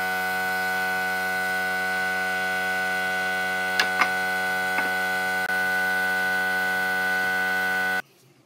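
A steady hum made of many held tones at unchanging pitch, which cuts off abruptly near the end. A few faint clicks come about halfway through.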